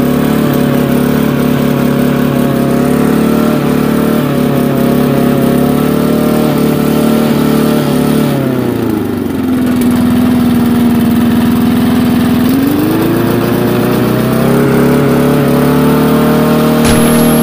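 Walk-behind lawn mower's Briggs & Stratton engine running with a plastic pipe over its side discharge chute. It runs steadily, slows noticeably about eight seconds in, holds the lower speed for a few seconds, then picks back up.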